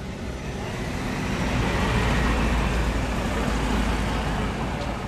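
A car driving past close by on a paved street: engine rumble and tyre noise building over the first couple of seconds and holding loud until near the end.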